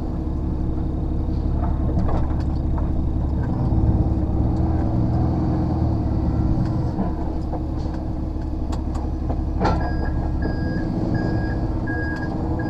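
HGV lorry diesel engine running through the cab while manoeuvring slowly, its note changing a few times, with scattered clicks. A sharp knock about ten seconds in, then a reversing alarm starts beeping about twice a second.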